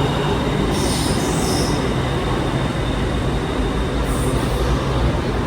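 Train running on rails with a steady rumble, its wheels giving two brief high squeals.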